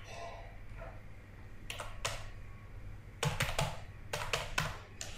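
Typing on a computer keyboard: scattered keystrokes, a couple in the first half, then a quicker run of clicks in the second half.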